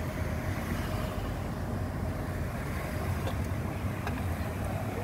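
Steady low engine rumble with a faint steady hum, heard from inside a car.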